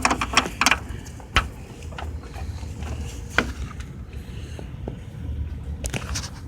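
Hard plastic clicking as a Volvo 940 turn signal bulb socket is twisted and worked out of its housing: a quick run of clicks at the start, single clicks about a second and a half and three and a half seconds in, and a few more near the end, over a low steady rumble.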